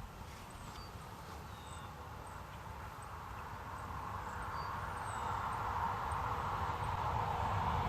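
A distant engine approaching, its low rumble and hum growing steadily louder, over quiet outdoor ambience with faint, scattered high chirps.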